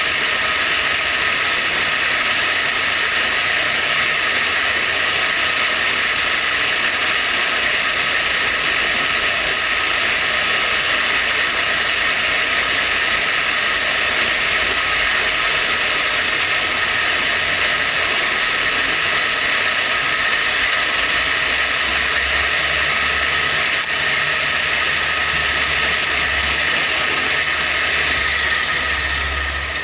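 Knee mill's spindle running and cutting, opening up the holes in a tooling plate: a steady high whine over a dense hiss. It dies away at the very end.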